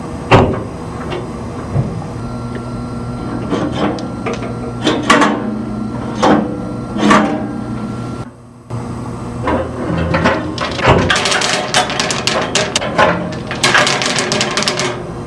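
Bingo balls clacking. There are separate knocks as single balls are set into the holes of the Speed-O-Matic masterboard. About two-thirds of the way in, this turns into a dense rattling clatter of many balls tumbling together.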